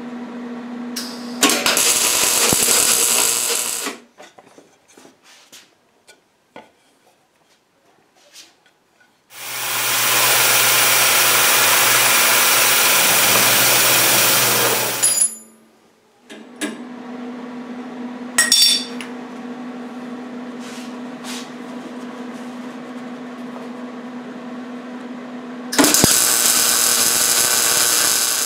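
MIG welding in two bursts of a couple of seconds each, one near the start and one near the end, with a steady machine hum between. In the middle, about six seconds of a milling machine's end mill cutting steel, loud and even, ending abruptly.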